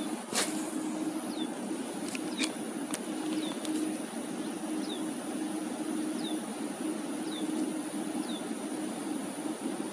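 A bird repeating a short, high, falling call note about once a second, over a steady low hum like a distant engine and a faint high steady tone. A sharp click about half a second in is the loudest sound.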